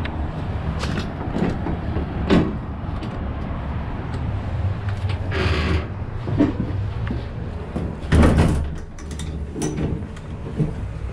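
Clanks and knocks of heavy steel doors and fittings inside a steel warship, several separate knocks with the loudest a little past the middle, over a steady low rumble. Near the end a handwheel on a steel hatch is turned, with a few smaller clicks.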